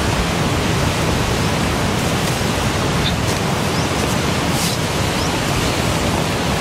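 Strong wind buffeting the microphone: a loud, steady rush of noise, heaviest in the low end, with a few faint brief rustles.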